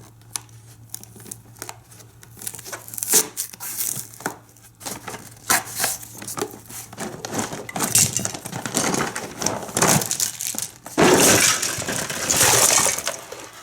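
A cardboard toy box being opened by hand, with paper and plastic packaging crinkling and tearing and small plastic pieces clicking. The rustling grows louder and more continuous for the last few seconds.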